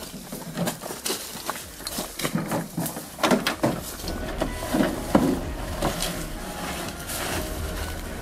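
A physical struggle on the forest floor: repeated thuds and rustling in dry leaves, with strained grunts in the middle. A low steady rumble grows in the second half.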